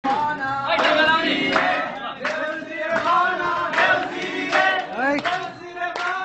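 A group of young men singing or chanting together in unison, with sharp hand claps at an even beat under the voices.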